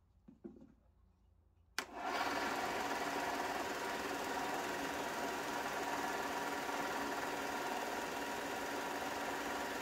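WEN 4-by-36-inch belt and 6-inch disc sander switched on about two seconds in, its motor starting with a sharp click and then running steadily at speed with no wood against the belt.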